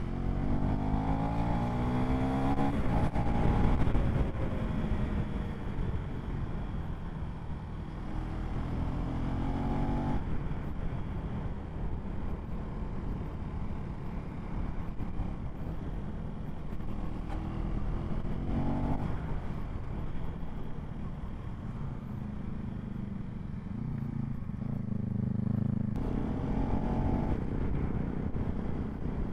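Motorcycle engines running on the road under steady rumble and wind, the revs climbing in pitch about four times as the bikes accelerate.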